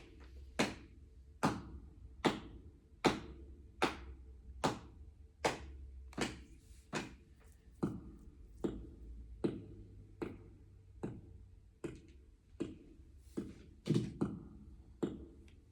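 A steady, even beat of sharp taps or knocks, about one stroke every 0.8 seconds, over a low steady hum.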